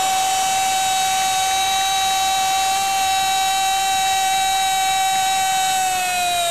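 Football commentator's long, held goal cry of "gooool": one steady, loud high note that begins to sag and fall in pitch near the end as it trails off.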